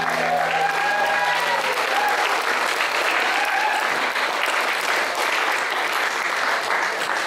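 Audience applauding, steady and dense, with a few calls from the crowd in the first seconds. The last acoustic guitar chord rings out underneath for the first couple of seconds.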